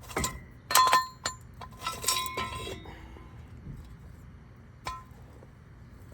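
Steel jack stand clanking as it is moved out of the way: a handful of sharp metal strikes that ring briefly, the loudest about a second in, a cluster around two seconds, and one last clank near five seconds.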